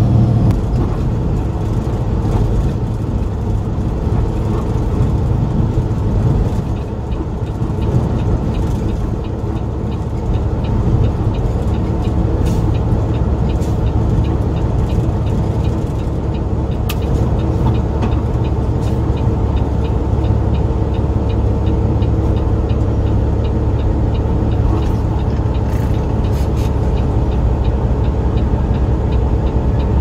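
Heavy truck's diesel engine and road noise heard from inside the cab while driving, a steady low drone that dips briefly about seven seconds in.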